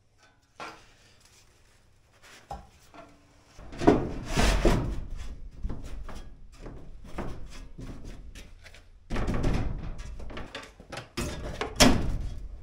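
Knocks, thunks and metal rattles from handling sheet metal: a bent steel shelf being worked on a hand sheet-metal brake and fitted against the wall, with a sharp thunk near the end as a diesel heater is set onto it.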